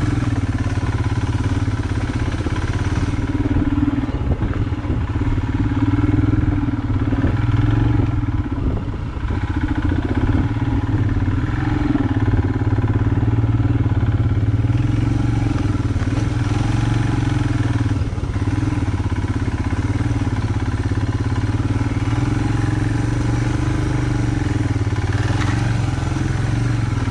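Motorcycle engine running at steady, even revs as the bike climbs a rocky off-road trail, with scattered knocks and rattles as it rides over the stones.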